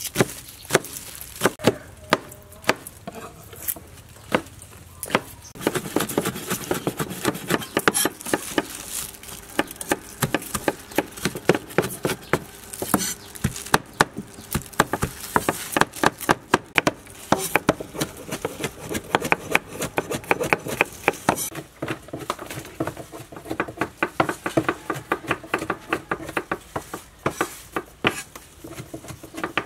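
Cleaver chopping red chillies on a wooden cutting board: runs of quick knocks, several a second, with short pauses between runs.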